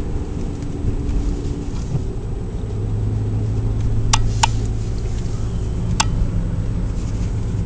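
Saab 9000 driving, heard from inside the cabin: a steady engine and road drone whose note changes about three seconds in. Three sharp clicks come in the middle.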